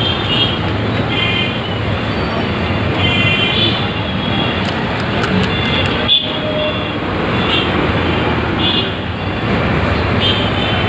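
Loud, steady road traffic noise, with short high toots of horns breaking in every second or so.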